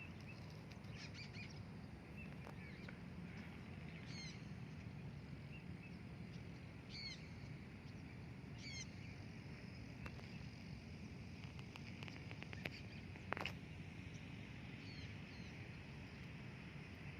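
Faint, brief high-pitched bird chirps every few seconds over a steady low outdoor rumble, with one sharp click about thirteen seconds in.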